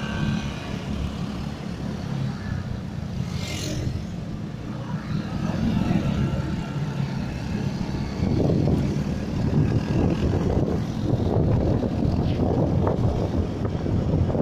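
Motorcycle engine running at riding speed, with wind rushing over the microphone that grows louder about halfway through. A brief hiss sounds near the four-second mark.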